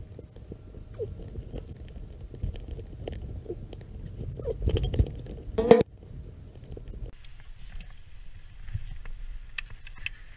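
Rustling, scraping and clicking of climbing rope and harness gear being handled, with boots and kit brushing the wall. There is one loud scrape close to the microphone a little under six seconds in. A low rumble underneath stops about seven seconds in.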